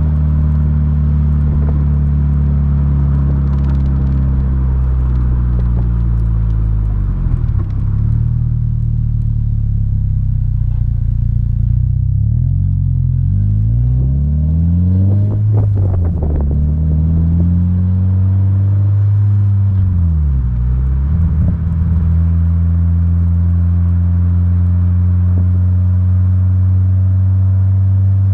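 2022 Subaru BRZ's 2.4-litre flat-four boxer engine droning through its Invidia N1 cat-back exhaust while driving. It holds steady at first, then the revs fall and rise several times in the middle before it settles back to a steady drone.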